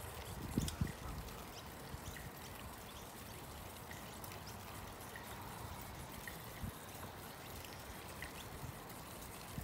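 Steady rushing noise of riding a bicycle along an asphalt path, with wind and tyre hiss. There are a few low thumps in the first second.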